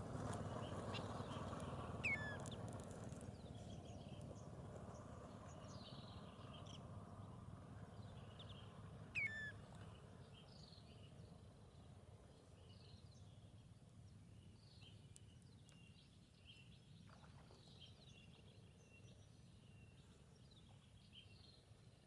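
Faint chorus of many water birds calling, short chirps and twitters overlapping throughout, with two louder down-slurred calls about two and nine seconds in.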